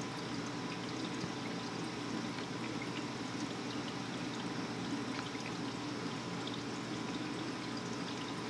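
Steady trickle and splash of water circulating through a reef aquarium, with small scattered ticks over an even rush.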